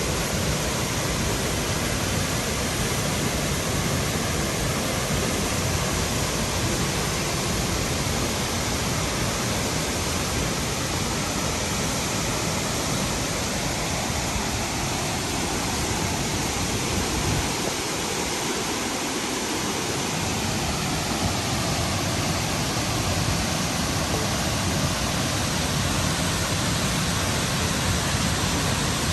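Burney Falls' 129-foot waterfall pouring into its basin, a loud, steady rush of falling water.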